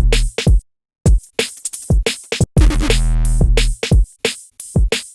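Electronic synth bass loop: a held, buzzy bass note breaks into short staccato stabs over drum-machine hits, with hiss on top of each hit. The phrase repeats about two and a half seconds in, with brief silences between the stabs.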